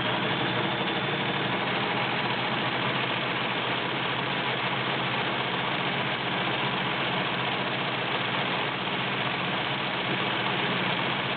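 Kenmore 1703 all-metal sewing machine with a 1.2-amp motor running steadily at speed while sewing a satin stitch.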